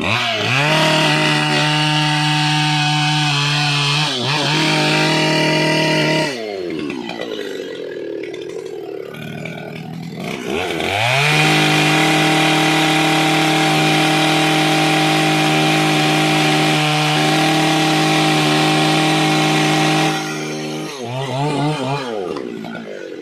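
Two-stroke petrol chainsaw cutting dry, hard teak in two full-throttle runs. The engine revs up near the start and holds for about six seconds, then drops back toward idle. It revs up again about ten seconds in, holds steady for about nine seconds, and falls back to idle near the end.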